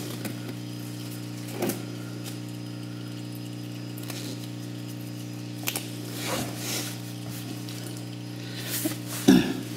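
Steady low electrical hum, with a few brief rustles and clicks as oily disposable gloves are pulled off the hands.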